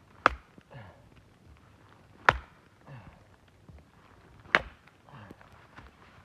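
Wood being chopped: three sharp strikes about two seconds apart, with faint rustling between them.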